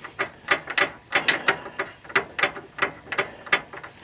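Ratchet wrench clicking in quick, uneven strokes, about three or four clicks a second, as bolts are run down and tightened.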